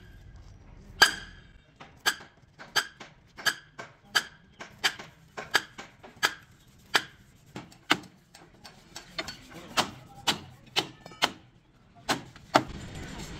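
Heavy hammer striking a steel truck chassis rail: a steady series of ringing metal clangs, about one and a half a second, coming quicker for a few blows near the end.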